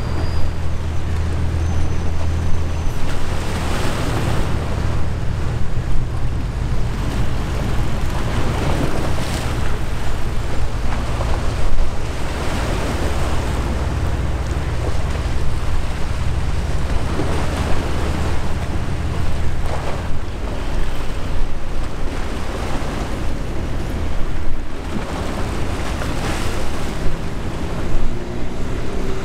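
Wind buffeting the microphone in irregular gusts over the low, steady drone of a large ship's engine. The drone grows fainter in the last third.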